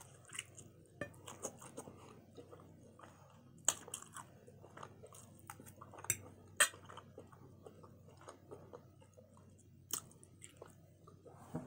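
Close-miked chewing and biting of juicy barbecue rib tips: wet, irregular mouth sounds with a few sharper clicks scattered through.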